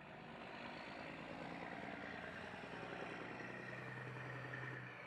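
A motor vehicle's engine passing: a steady engine hum that builds over the first second and drops away near the end.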